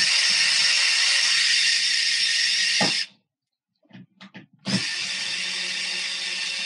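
Makita cordless drill-driver running, backing out two Phillips screws from a dryer's top panel: a steady motor whine for about three seconds that stops, a few light clicks, then a second steady run starting about two-thirds of the way in.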